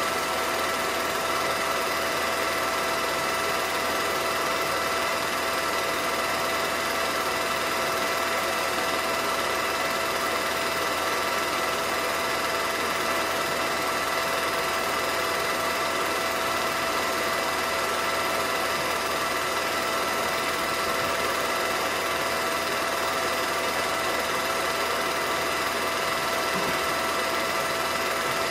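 Home-movie film projector running: a steady mechanical whir with constant tones in it, unchanging throughout.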